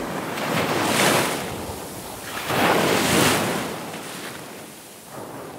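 Ocean surf: waves washing in, with two big swells about two seconds apart and a smaller one near the end, the sound falling away overall.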